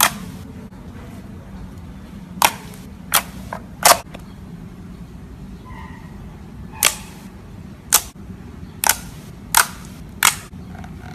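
Glossy slime being pressed and squeezed, giving about ten sharp pops at irregular intervals as trapped air bursts through it.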